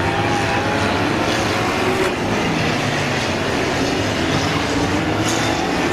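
Engines of several small hatchback stock cars racing round the oval, revving together in a steady mixed drone with pitches that rise and fall as they accelerate and ease off.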